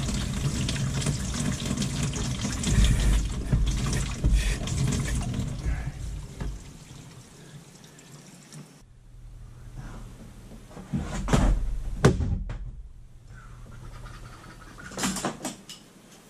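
Water running from a kitchen faucet into a stainless sink for about six seconds, then fading away. It is followed by a few sharp knocks, the loudest about eleven and twelve seconds in, and another short clatter near the end.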